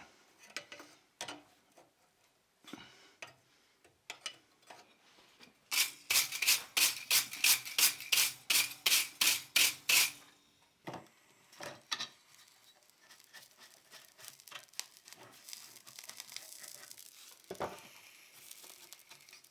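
Rapid back-and-forth scraping strokes of a hand tool on the forged iron rose, about four or five a second for some four seconds, after a few scattered light clicks; a faint steady hiss follows.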